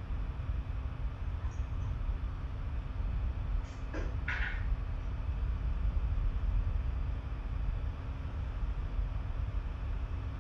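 Coffee pouring from a glass carafe into ceramic mugs, with a couple of brief sharper sounds about four seconds in. A steady low room rumble and a faint hum run underneath.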